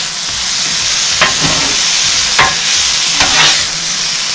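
Sliced peppers, onions and mushrooms sizzling on a Blackstone steel flat-top griddle while two metal spatulas scoop and toss them, with a few sharp scrapes and clacks of steel on the griddle.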